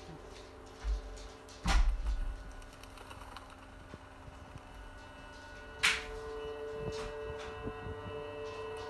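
Soft background music of long held notes, changing chord about six seconds in, with loud low thumps about one and two seconds in and two sharp clicks.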